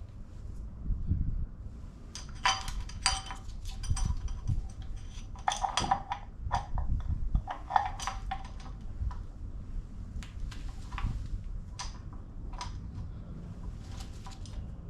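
Hand tools and metal engine parts clinking and clanking during work on the engine, a string of sharp metallic clicks and knocks, busiest from about two to eight seconds in.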